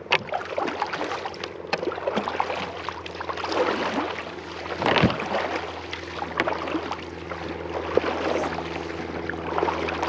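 Wooden canoe paddles stroking through river water, with repeated splashes, drips and small knocks as the blades dip and pull, over a steady rush of water. The loudest splash comes about halfway through.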